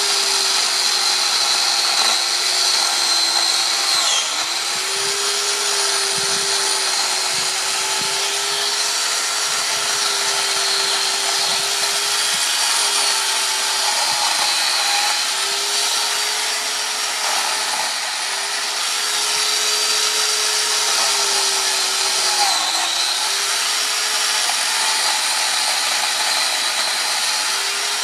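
Corded electric chainsaw running steadily as it cuts into wood, its motor pitch sagging briefly under load a few times, near 4 s and near 22 s.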